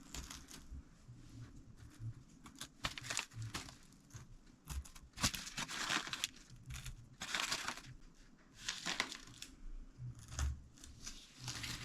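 Irregular crackling and crinkling as small sugar-shelled chocolate eggs are pressed by hand into a crispy chocolate, biscuit and Rice Krispies mix in a baking-paper-lined tin.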